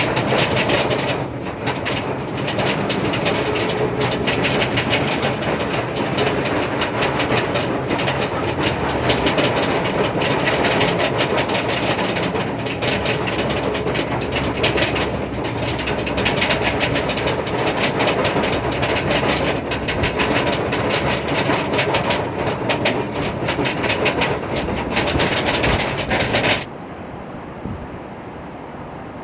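A ride vehicle rolling along its track with steady, rapid clattering of wheels on rail. Near the end it cuts off abruptly to a much quieter steady hiss.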